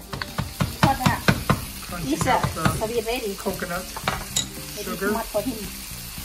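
Wooden spoon stirring chicken in curry sauce in a wok, knocking against the pan several times in quick succession near the start, then scraping and squeaking against the pan, over a steady sizzle of simmering sauce.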